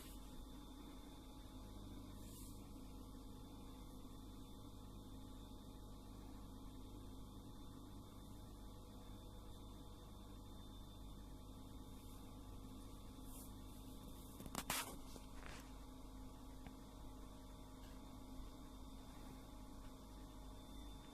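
Faint, steady low electrical hum, with two sharp clicks about fifteen seconds in.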